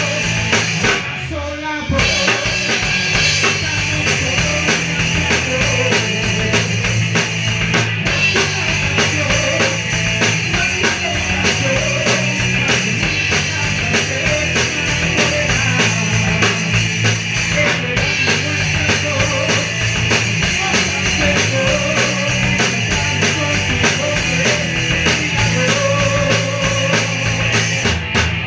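Ska-punk band playing live in rehearsal: drum kit, bass and guitars driving a steady up-tempo beat. There is a short break about a second in, then the full band comes back in.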